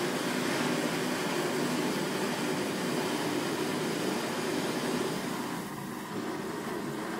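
Steady machine-like hum and hiss of workshop background noise, easing slightly about five and a half seconds in.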